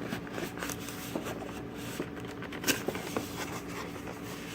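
Hands working at a sealed cardboard product box: scattered small clicks, taps and scrapes as fingers pick at the flap, with one sharper knock a little past halfway. A faint steady hum sits underneath.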